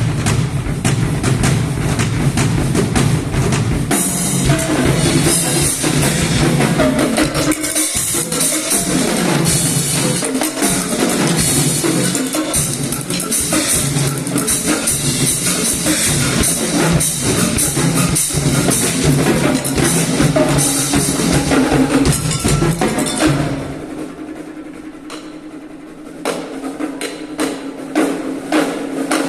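Multipercussion trio playing fast, dense drum strokes with deep bass-drum hits. About three-quarters through the playing drops to a quieter passage with the low end gone, then sharp, rapid strokes come back near the end.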